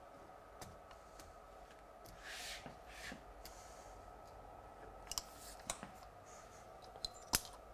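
Caulking gun of sanitary silicone in use: two soft swishes about two and three seconds in, then a few sharp clicks and taps from the gun as it is handled and set down. A faint steady room hum runs underneath.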